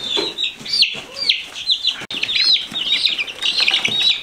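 A brood of young chicks peeping: many short, high-pitched peeps overlapping, several a second.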